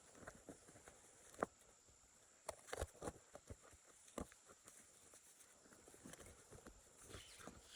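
Faint, irregular light knocks and clicks, with a sharp one about a second and a half in and a quick cluster around three seconds in.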